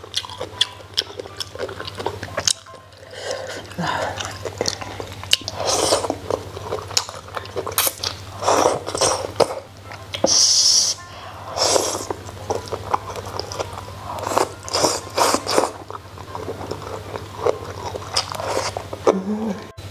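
Close-miked eating from a self-heating hot pot: irregular slurps, chewing and mouth noises as strips and broth are sucked up and chewed, with a stronger slurp about halfway through.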